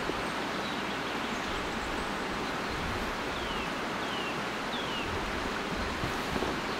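River water flowing in a steady rush. About halfway through, a bird gives three short falling whistles.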